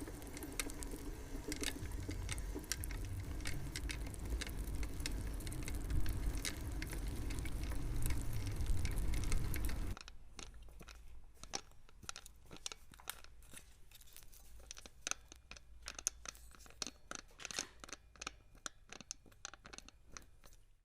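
Bicycle rear freehub clicking as the wheel turns: quick, irregular ticks of the pawls. For the first half they sit over a louder low rumble that stops suddenly about halfway, leaving only the clicks.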